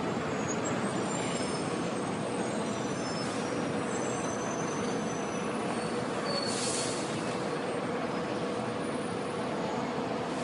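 Steady city street traffic noise with a constant engine hum, and brief hissing swells about three and six and a half seconds in.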